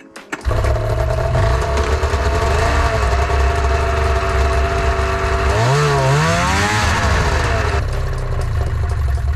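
Arctic Cat ZR600 600cc two-stroke snowmobile engine running, blipped twice so that its pitch rises and falls around three seconds in and again, more strongly, around six seconds in. It starts abruptly about half a second in and stops near the end.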